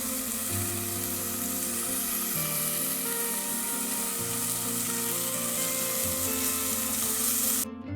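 Onion-spice paste and tomato sizzling steadily in hot mustard oil in a pan, cutting off suddenly near the end; soft plucked-string background music plays underneath.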